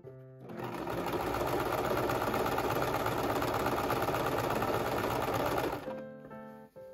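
Domestic electric sewing machine stitching through white satin at a fast, even pace, with a rapid run of needle strokes. It starts up just after the beginning, runs for about five seconds, and stops about a second before the end.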